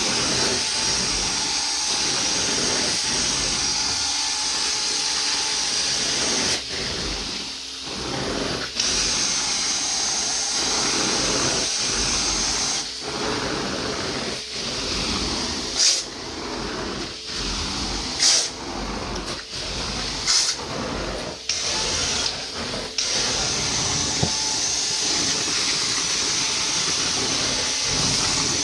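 Carpet-cleaning extraction wand pulling water out of carpet, a steady strong hiss of suction. The hiss dips back twice as the wand's strokes change, with a few sharp clicks in the middle.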